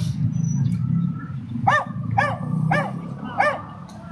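A dog giving four short, high yelps in quick succession, each rising and falling in pitch, starting a little under two seconds in. A low steady drone runs underneath.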